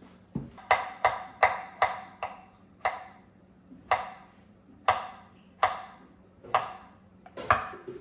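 Kitchen knife cutting vegetables on a cutting board in slow, careful strokes: about a dozen chops, a few quick ones close together at first, then further apart.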